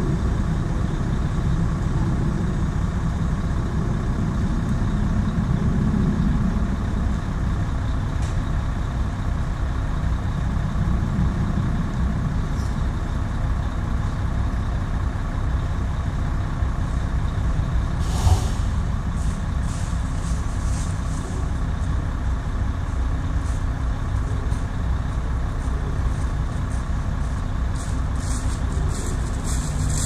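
Heavy work truck's diesel engine running steadily, with a single sharp knock about eighteen seconds in.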